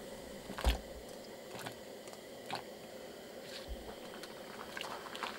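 Pot of broth boiling on a gas canister camping stove: a steady hiss with scattered small pops and clicks, and a soft knock about a second in.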